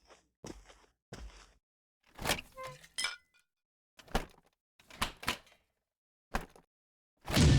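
Cartoon sound effects: a few soft short knocks, then a clatter with a brief ringing clink about three seconds in, and four sharp hits. Loud music starts just before the end.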